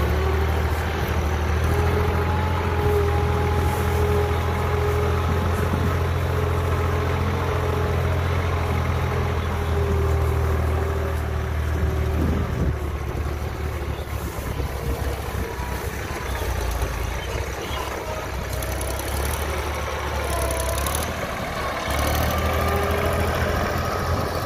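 Iseki TS3910 tractor's diesel engine running steadily while it hauls sacks of paddy, its note shifting about halfway through.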